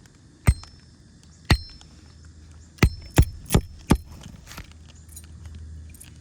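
Hammer striking roofing nails through asphalt shingles: six sharp metallic strikes with a short ring, two spaced about a second apart, then four in quick succession.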